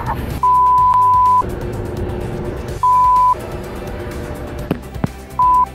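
Three censor bleeps of one steady high tone covering swearing: the first about a second long, the second about half a second, the third brief near the end. Background music plays underneath.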